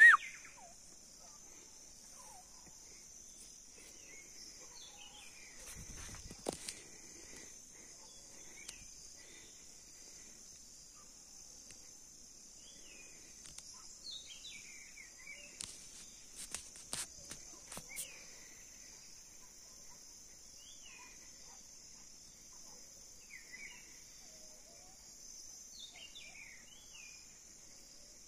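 Steady high-pitched insect drone with many short, falling bird calls scattered over it. A few sharp clicks about six seconds in and again around sixteen to eighteen seconds.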